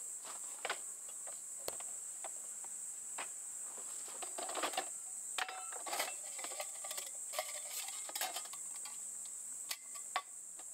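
Clicks and light knocks of camping gear being lifted out of a plastic storage box and set down on a wooden table, over a steady high chirring of crickets.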